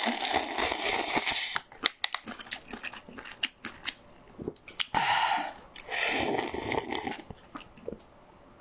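Close-miked eating of instant cup noodles: a long slurp of noodles, then wet chewing clicks, then two slurps about five and six seconds in as the cup is raised to the mouth, with quieter chewing near the end.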